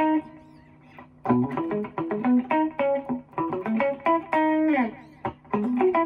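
Yamaha SG electric guitar played clean on its middle pickup setting through a Mesa/Boogie Mark IIB amp, with an MXR Dyna Comp Deluxe compressor and a light short delay. It plays a single-note melodic phrase, breaks off briefly about a second in, and has a note sliding down in pitch around four and a half seconds in.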